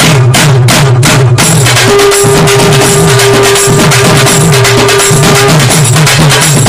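Loud music with a fast, busy percussion beat over a bouncing bass line; a single long held note sounds through the middle and stops a little past halfway.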